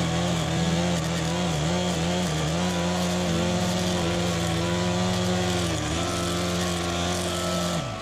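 ATOM 561 petrol lawn edger running at high speed as its blade cuts along the kerb edge, the engine note dipping briefly a few times under load. The engine winds down and stops near the end.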